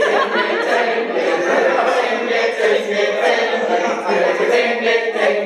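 A large group of men and women singing a chant-like song together, unaccompanied.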